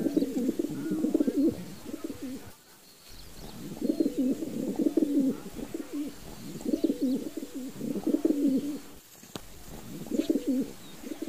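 Domestic pigeons cooing close by, in repeated low, wavering phrases about a second long with short gaps between them.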